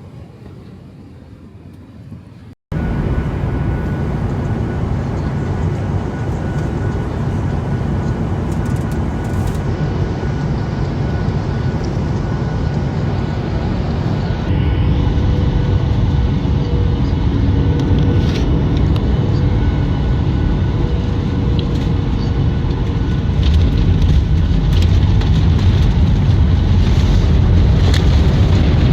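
Jet airliner engines and airframe rumble heard inside the cabin: a loud, steady low rumble with faint engine tones, growing louder about halfway through and again near the end.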